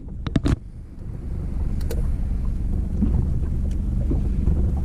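Boat engine idling as a low steady rumble. A few sharp clicks sound in the first half-second as pliers work a hook out of a caught fish.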